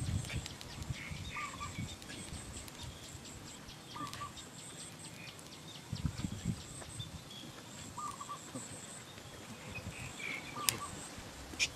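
Outdoor ambience of birds and insects: a short two-note bird call repeats every few seconds over a fast, high insect chirring. A few low thumps come about six seconds in, and two sharp clicks come near the end.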